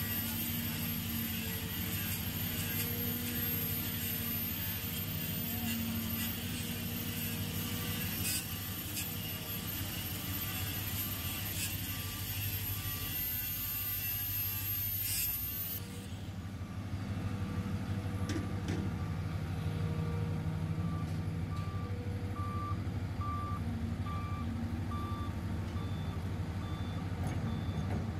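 Caterpillar 320C hydraulic excavator's diesel engine running steadily under work. From just past halfway, a backup alarm beeps at a steady pace, about once a second.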